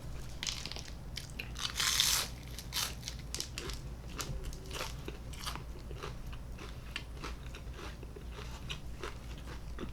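Close-miked eating: bites and chewing of crunchy food, a run of short crisp crunches with a louder crunch about two seconds in.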